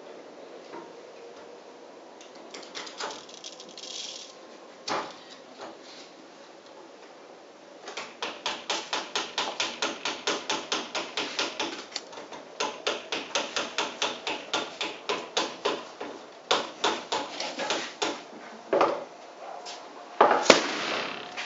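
A long run of sharp tapping clicks, about four a second, then a miniature black-powder model cannon fires with a single sharp bang that echoes briefly in the hall near the end.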